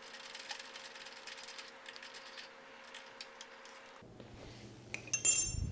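Faint clicking and ticking of a wrench working the nut onto the motorcycle clutch lever's pivot bolt, then a loud sharp metallic clink with a knock near the end.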